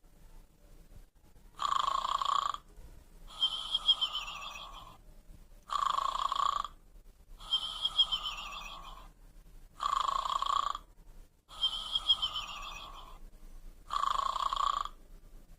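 Snoring panda toy playing its snore: a rasping in-breath snore followed by a whistling out-breath that falls in pitch. The cycle repeats evenly about every four seconds, four snores and three whistles.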